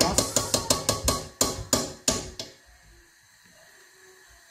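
A metal spoon knocking repeatedly on the rim of a metal cooking pot to shake off ghee, quick ringing taps about four or five a second. The taps stop about two and a half seconds in.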